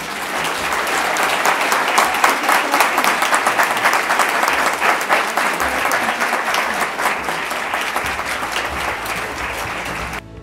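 Audience applauding: many hands clapping in a dense patter, loudest in the first few seconds, easing a little, then stopping abruptly near the end.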